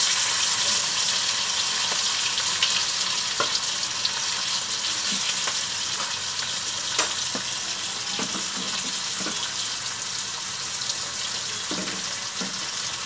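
Marinated fish steaks shallow-frying in hot oil in a pan: a steady sizzle with scattered crackles and spits. It is loudest about the first second, as another piece is lowered into the oil.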